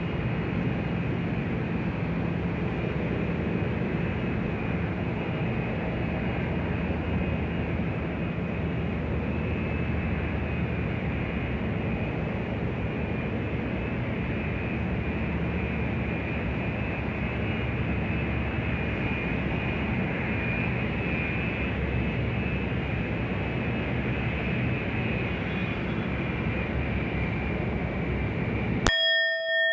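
Steady jet aircraft engine noise, a dense rush with a low hum and a high whine on top. Near the end it cuts off suddenly, and a singing bowl is struck once and rings.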